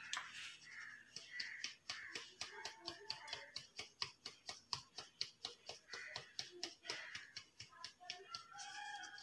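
Faint, rapid, even tapping of a hand against the side of a plastic flour sieve, about four to five taps a second, sifting flour with cocoa powder for a cake batter.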